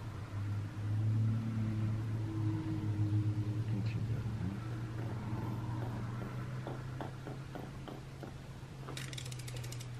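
Steady low hum, with scattered soft clicks and a short rapid crackle near the end.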